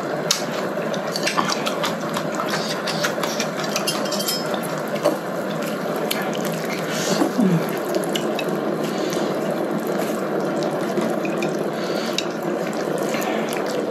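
Broth bubbling at a steady boil in an electric hotpot, with scattered clicks of chopsticks against the pot and eating sounds.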